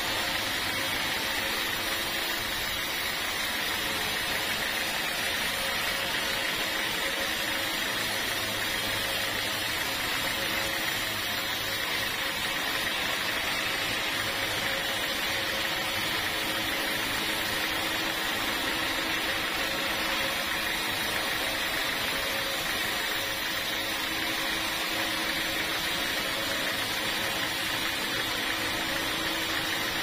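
Sawmill machinery running steadily while sawing teak: an even mechanical drone with a steady high whine.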